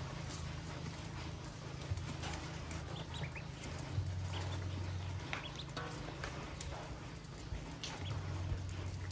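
A group of newly hatched ducklings peeping here and there while pecking grain feed from an aluminium bowl, with light taps of bills on the metal. A steady low rumble runs underneath.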